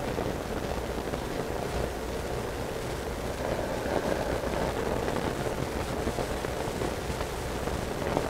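Steady background noise with a low hum, no distinct sound events: room tone.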